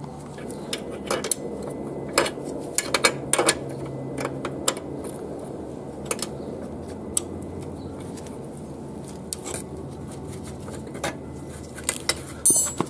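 Spanner working the chain adjuster nuts and studs at a motorcycle's rear axle: scattered light metal clicks and clinks, with a quick run of ticks near the end.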